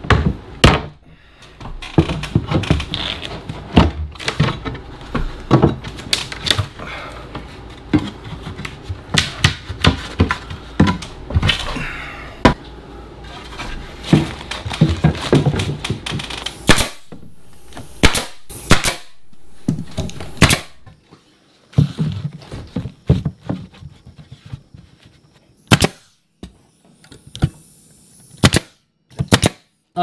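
Knocks, thuds and wood scraping as a pine board is pried off the wall-ceiling joint, followed from about halfway on by a nail gun firing a series of single shots, about ten in all, a second or so apart, nailing the board back up.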